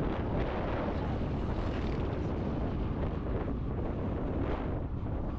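Steady wind rushing over the microphone of a moving Yamaha Aerox v2 scooter, with its engine and road noise running underneath at a constant pace.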